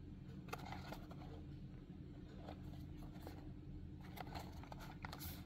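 Faint scrapes and small clicks of a small cardboard box and its packaging being handled and opened, a handful of short strokes spread out over a few seconds.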